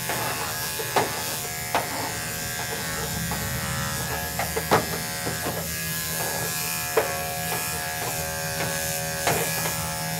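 Electric dog-grooming clipper running with a steady buzzing hum as it is worked through the dog's coat, with a few brief sharp clicks scattered through it.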